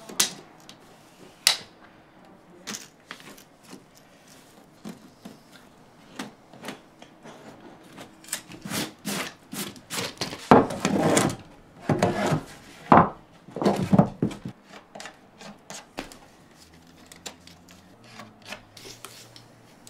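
Handling lumber and tools on an old wooden subfloor: scattered sharp knocks and clicks, and about halfway through a few louder rubbing, scraping sounds of a wooden board being moved into place across the floor.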